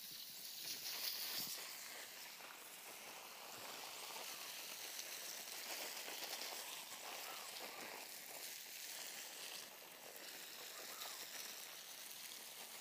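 Water spraying from a garden hose whose end is pinched by hand into a flat fan: a steady hiss as the spray falls on the plants, a little louder about a second in.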